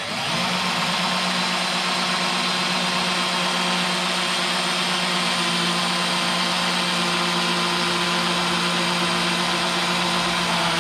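Parkside cordless angle drill running, its head set at 45 degrees, as it drills through wood. The motor holds one steady pitch throughout and does not bog down; it has no problem going through.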